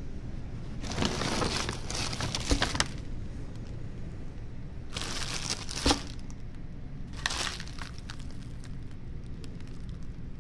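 A plastic bread bag and paper grocery bags crinkling in three bursts as the groceries are handled, with a sharp crack in two of them, over a steady low rumble.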